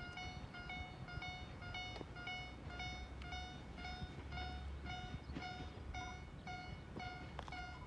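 Electronic railway level-crossing alarm ringing steadily, about two tones a second, the warning that a train is approaching. Beneath it, a low rumble from the approaching Tarumi Railway diesel railcar.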